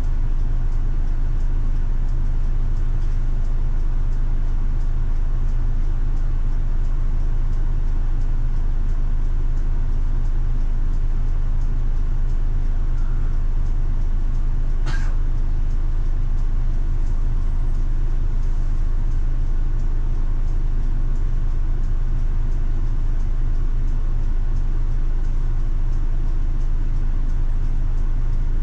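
Route bus underway, heard from inside: a steady low engine hum and road rumble with no change in pace. A single sharp click about halfway through.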